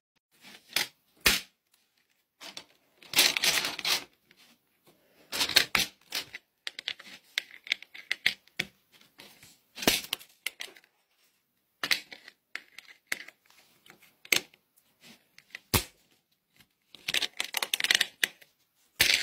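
Plastic LEGO plates being handled on a baseplate: clusters of clicking, tapping and scraping, with short pauses between them.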